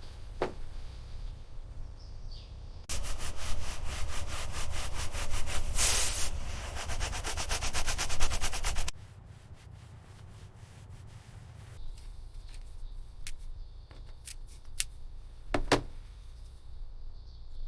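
Abrasive rubbing or sanding noise with a fast, even pulse, starting abruptly about three seconds in and stopping about six seconds later. After it come scattered light clicks and ticks over a low hum.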